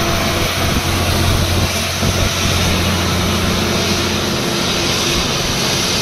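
Tata Signa 5530.S tractor unit's diesel engine running under load as it pulls a loaded flatbed trailer past, a steady low drone over tyre noise. The drone fades about four and a half seconds in as the truck moves away.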